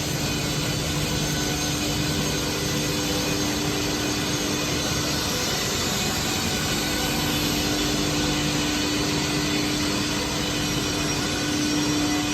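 EPS sandwich panel production machine running: a steady machine noise with a low hum that fades and returns.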